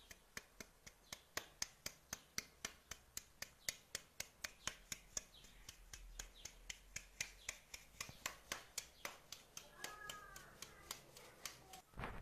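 Faint, regular clicking of a utensil beating against a bowl, about four clicks a second, as in hand-beating ingredients. A brief squeak sounds about ten seconds in.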